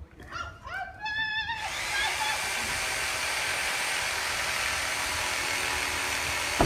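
Handheld power saw spinning up in a few short rising whines, then running steadily as it cuts into a tree trunk, with a brief knock near the end.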